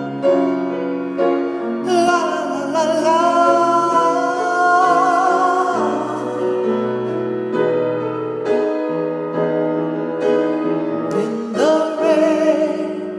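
Solo piano accompaniment with a singer holding long, wavering notes, first about two seconds in and again near the end.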